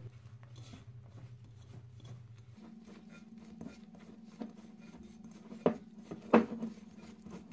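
Hands kneading softened butter into icing sugar in a glass bowl: faint rubbing and squishing, with a few short clicks in the second half.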